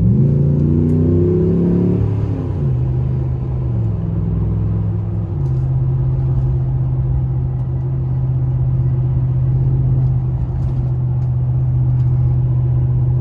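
Cab sound of a 2018 Ram 1500 pickup speeding up: the engine rises in pitch and drops twice as the transmission upshifts, about two and a half and five seconds in. It then settles into a steady drone at cruising speed, with the hum of Mastercraft MXT mud-terrain tires on the road.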